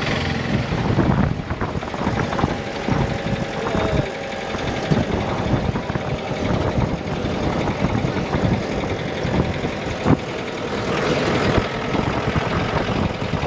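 Jeep's engine running as it drives along a rough hill road, heard from on board, with frequent knocks and rattles from the vehicle over the road surface.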